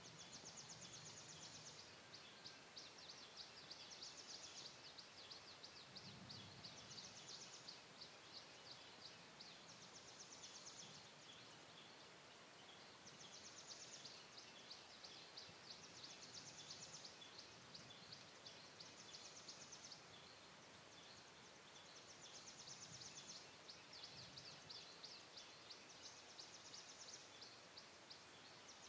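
Faint insect calls: a high, rapidly pulsed buzzing trill about a second long, repeated every two to three seconds over a quiet outdoor background.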